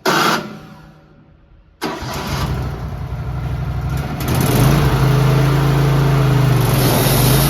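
Wood-Mizer LT15 sawmill's engine being started: a short burst right at the start fades away, then about two seconds in the engine catches and runs, rising to a higher steady speed about four seconds in.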